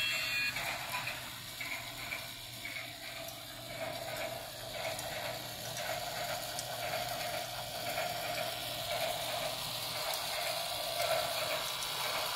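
Small electric motors and plastic gears of a miniature Christmas village display running steadily, with many light clicks.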